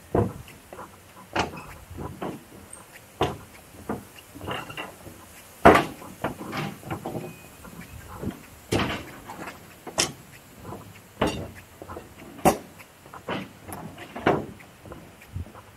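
Footsteps on the railway track, a knock or crunch about once a second at an unhurried walking pace.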